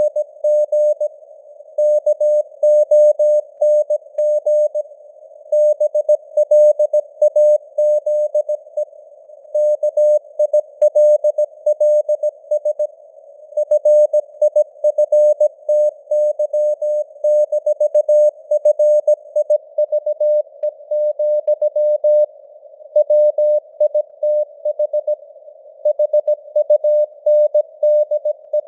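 Morse code (CW) sent at 17 words per minute: a single mid-pitched tone keyed on and off in dots and dashes, with short gaps between words, over a narrow band of simulated radio hiss.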